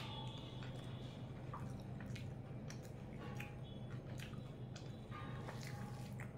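Wet chewing and small clicking mouth sounds of a person eating chicken curry and rice by hand, with soft squishing as the fingers mix rice on the plate, over a steady low hum.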